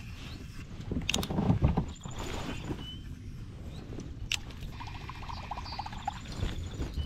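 Fishing rod and low-profile baitcasting reel handled on a kayak. There are knocks and bumps over the first couple of seconds, and a sharp click about four seconds in as the cast is made. Then, for about a second, the reel whirs with fine rapid ticks as line is cranked back in.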